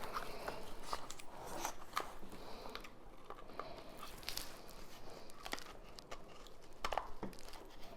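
Faint, scattered clicks and rustling of a random orbit sander's housing shell being handled and worked closed around its motor, with a slightly louder knock about seven seconds in.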